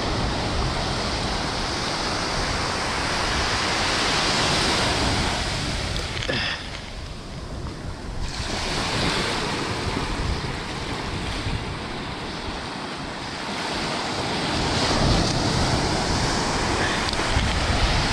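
Surf breaking and washing up the beach, with wind buffeting the microphone. The wash swells and ebbs, dropping off briefly about a third of the way in and building again near the end.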